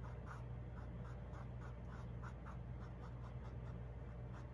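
Small paintbrush stroking white paint onto a canvas, with short scratchy strokes about three times a second over a steady low hum.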